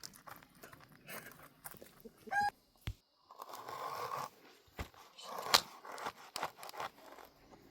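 Scattered crunching and scraping with sharp clicks. A short chicken call comes about two and a half seconds in.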